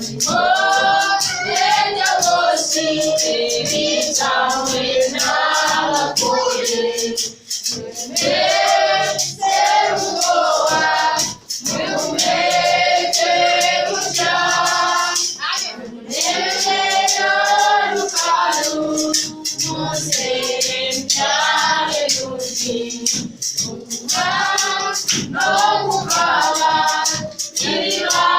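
A choir singing a worship song together, with percussion keeping a steady beat.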